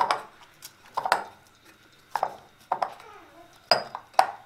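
Hands punching and kneading a ball of oiled spinach dough in a glass bowl: a series of sharp slaps and knocks, about one a second, with soft squishing between them.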